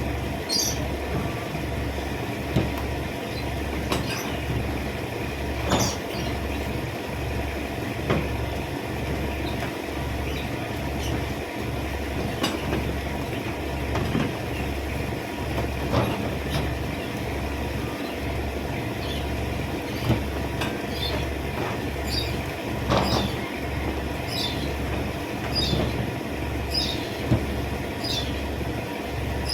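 A low mechanical throb pulsing about once a second, like a large engine or machine running, with short high chirps sounding now and then over it.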